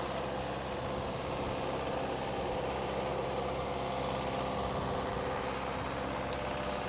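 Engine of a 1999 Landquip self-propelled sprayer running at a steady pitch as the machine drives across the field spraying.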